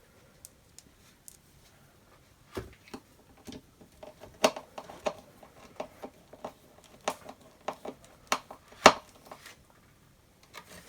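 A screw being driven with a crosshead screwdriver into the plastic handle of an upright vacuum cleaner: irregular small clicks and taps from the tool and the plastic parts, starting a couple of seconds in.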